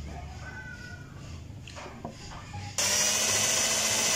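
Power drill starting about three seconds in and running steadily as it bores a hole through a hardened patch of instant-noodle seasoning powder and super glue on a motorcycle side-cover bracket. Before it, only faint handling sounds.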